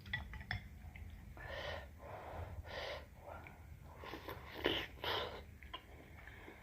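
A person slurping soupy noodles: four or five short, airy slurps, with small chewing clicks in between.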